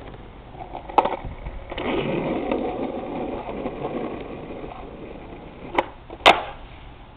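Skateboard rolling on asphalt with a steady wheel rumble, then the sharp pop of the tail striking the road and, about half a second later, the louder clack of the board landing after the jump. A single click comes about a second in.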